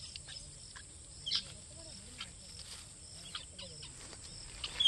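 Outdoor ambience of birds chirping in short scattered calls over a steady high insect drone, the loudest chirps coming about a second and a half in and right at the end.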